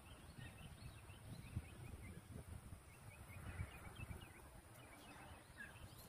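Faint outdoor ambience: many small, high chirps scattered throughout over a low, unsteady rumble.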